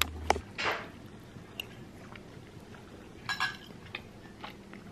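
Quiet eating sounds at a table: a few light taps and clicks of a spoon against a soup bowl, with soft chewing in between.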